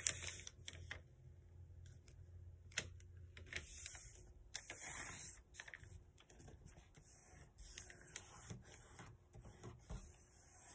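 A sheet of paper being folded and creased by hand: scattered crisp crackles and clicks, with a longer rustle about four to six seconds in.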